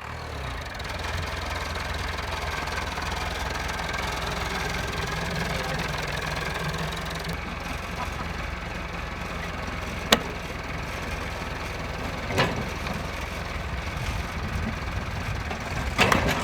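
An engine idling steadily, with a few sharp knocks about ten, twelve and sixteen seconds in.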